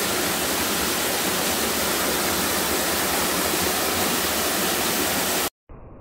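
Steady, loud rush of flowing water, like a waterfall or river rapids; it starts and stops abruptly at edits, cutting off about five and a half seconds in.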